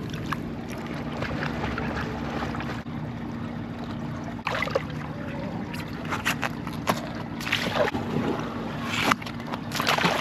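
Pool water splashing and sloshing: hands rinse a dive mask and snorkel in the water, then feet kick and splash at the pool edge in short irregular bursts, over a steady low hum.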